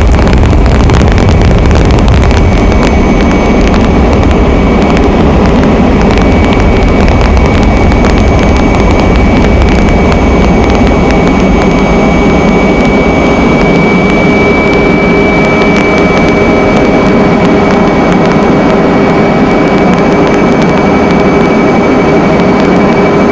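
Steady engine noise of an aircraft heard from on board, with a constant high whine over a dense rumble.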